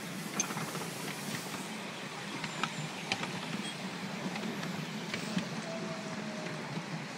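Miniature railway train running, heard from a riding carriage: a steady low rumble of wheels on the track, with scattered clicks and knocks.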